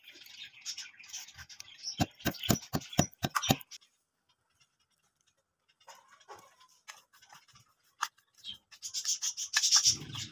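Wooden pestle grinding whole spices in a clay mortar: a scraping grind, then a quick run of about eight sharp knocks. After a short silence, a spoon scrapes and stirs spices on a ceramic plate, louder near the end.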